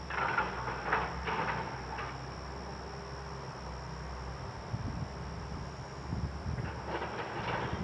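Distant metal clanks and bangs from a scrap yard, several in the first two seconds and more near the end, over a steady insect drone and a low hum.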